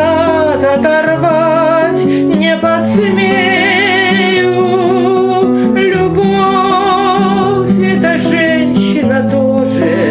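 A song: a woman sings long notes with vibrato over a guitar accompaniment.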